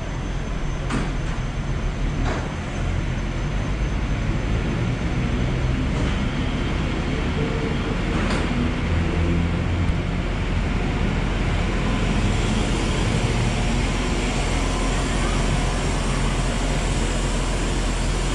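SKM Tricity electric multiple-unit commuter train pulling out along the platform: a steady rumble of wheels and traction motors, with a few sharp clicks over the rails.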